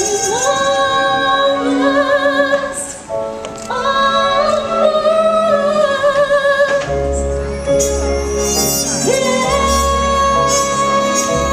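A woman singing long held notes with vibrato over orchestral stage-show music; a deep bass comes in about seven seconds in.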